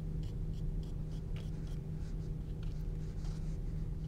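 A small paintbrush flicking acrylic paint onto a textured canvas board in short, light, scratchy strokes, several a second, over a steady low hum.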